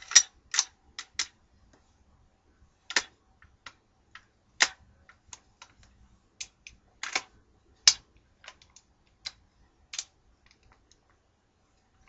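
Metal parts of an AGM M4 gas blowback airsoft rifle clicking and clacking as it is handled while being taken apart, M-series style. The clicks are sharp and come at irregular intervals, a handful of them loud.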